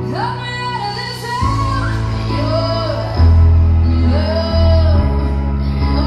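Pop ballad with a sung female lead vocal, played through an Infinity 3.1-channel home theatre speaker system and picked up in the room. A deep bass line comes in about a second and a half in and gets heavier a little later.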